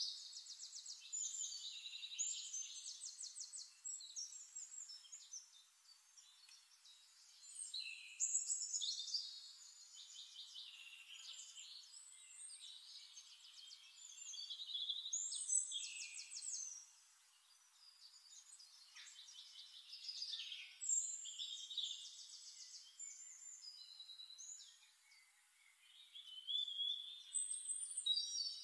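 A songbird singing: high-pitched phrases of rapid trills and chirps, each a few seconds long, with short pauses between.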